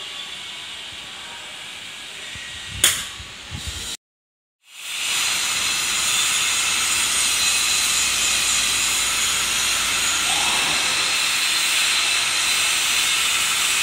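A steady hiss, quieter at first, with one sharp knock about three seconds in. The sound cuts out for a moment, then comes back as a louder, even hiss that holds steady.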